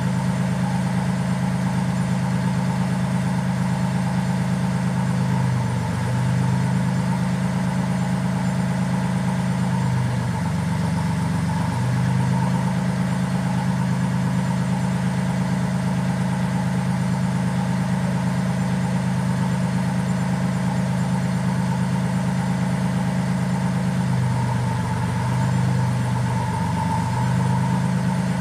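Compact tractor engine idling steadily while it drives the hydraulics of a boom-mounted hedge trimmer. Its note dips and recovers briefly about six seconds in, about eleven seconds in and again around 25 seconds in, as the boom's hydraulics are worked.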